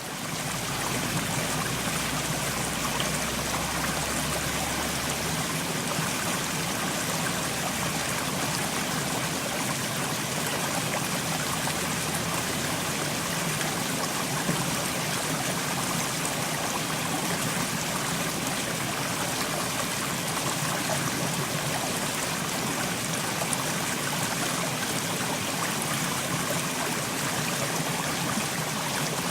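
Mountain stream flowing over rocks, a steady rush of water with trickling and gurgling.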